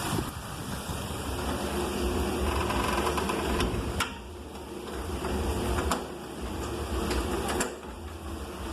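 Heavy rain falling steadily, with a low rumble and a few sharp knocks about four, six and seven and a half seconds in.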